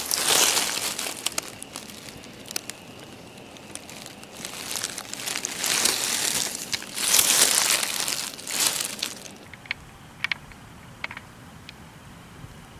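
Dry leaves and plant stems rustling and crackling close to the microphone, in several loud bursts as the foliage is brushed and pushed aside. The rustling stops about three-quarters of the way through, leaving a few small ticks.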